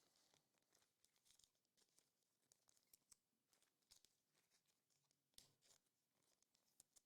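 Near silence, with faint scattered ticks and rustles of trading cards and a foil pack wrapper being handled.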